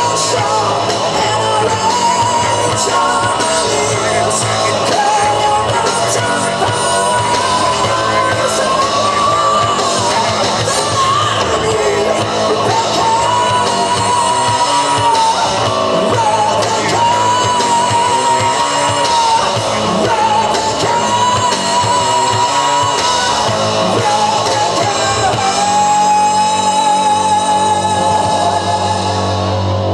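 Live rock band playing: a singer singing and shouting over electric guitars, bass and drums. Near the end a steady low drone comes in under the voice.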